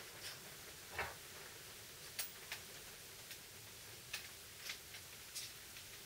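Faint, irregular clicks and taps of a sanding pad being handled and fitted onto the head of a Bosch multi-tool, with a heavier knock about a second in. The tool's motor is not running.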